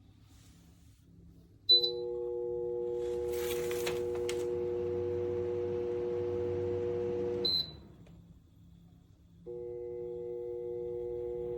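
Shinic twin 9-inch-blade window fan beeping once as it takes a command, then its motors running with a steady hum of two or three fixed tones and air noise. A second beep about six seconds later and the hum stops; near the end the hum starts again without a beep.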